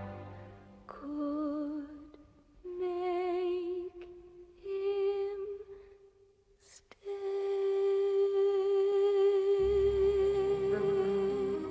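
Soft, wordless female singing from a film musical: short phrases with vibrato broken by pauses, then one long steady held note, with low orchestral accompaniment coming in near the end.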